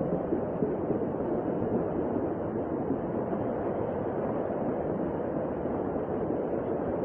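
Floodwater rushing: a steady, even rushing noise with no distinct events.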